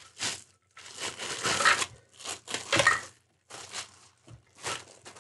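Clear plastic bag crinkling in about five bursts as it is pulled off a plastic tumbler.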